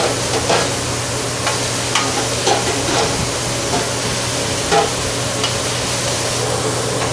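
Chopped al pastor pork and carne asada with onions sizzling on a hot flat-top griddle, stirred and tossed with metal tongs that click and scrape against the steel a few times.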